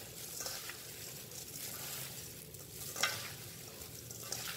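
Plastic-gloved hands tossing and squeezing shredded young coconut with granulated sugar in a metal bowl: a steady soft crinkling and rustling of the gloves and moist strands, with a few sharper crackles, the loudest about three seconds in.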